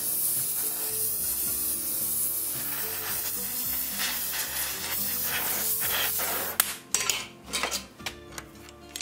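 Oxy-fuel gas torch hissing steadily while it heats an iron link to red heat. The hiss cuts off suddenly about six and a half seconds in, followed by a few sharp metallic clicks. Soft background music runs underneath.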